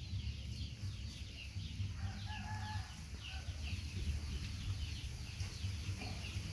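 Chickens in the background: rapid high chirps, several a second, with a short held call about two seconds in, over a steady low rumble.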